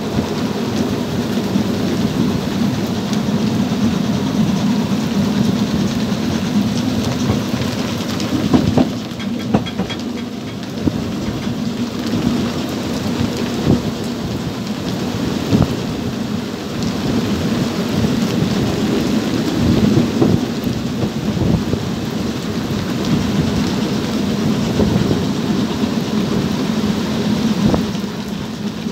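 Steady heavy rain on an open carriage of a moving narrow-gauge train, mixed with the train's low rolling rumble, with scattered sharp knocks throughout.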